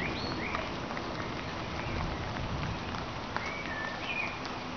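Steady rain falling, an even hiss of drops, with a bird chirping a few short notes near the start and again near the end.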